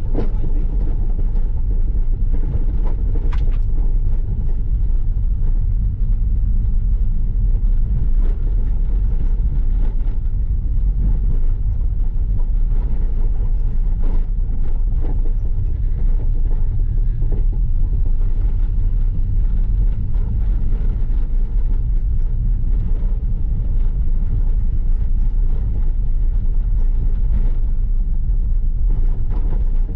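Carbureted 1.6 CHT four-cylinder engine of a VW Gol, fitted with a turbinho exhaust, running at a steady cruise: a constant low rumble mixed with road noise.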